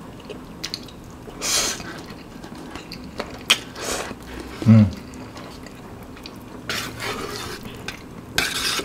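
Close-up eating sounds of Samyang instant noodles: short wet slurps and chewing in several bursts, with a light click about three and a half seconds in and a brief low hum near the middle.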